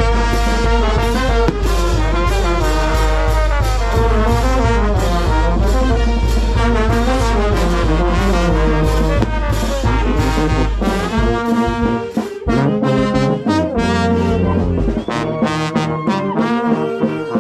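Brass band music: trumpets and trombones playing a moving melody over sharp percussion strokes. The heavy low bass drops out about eleven seconds in.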